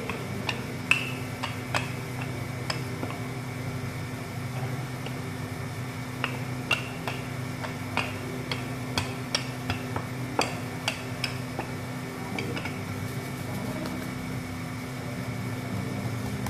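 Hands rolling up a sheet of dough on a marble countertop, with scattered light clicks and taps against the stone, over a steady low hum.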